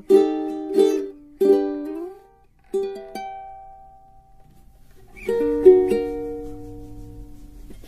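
Strummed chords on a small plucked string instrument ending one song and leading into the next: a few short chords, a last chord left to ring and fade, then a new chord about five seconds in.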